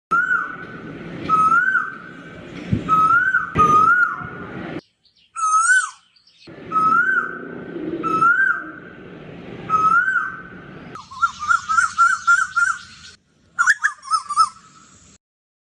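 A bird singing a loud, repeated whistled note that swoops up at its end, roughly once a second, then a fast run of quick whistled notes near the end. The song breaks off abruptly twice.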